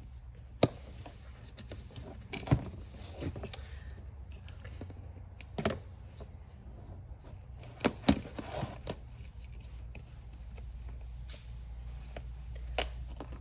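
Hands fitting a bungee cord onto a plastic pulley: about six sharp clicks and knocks, spread irregularly, with rustling and scraping of the parts between them.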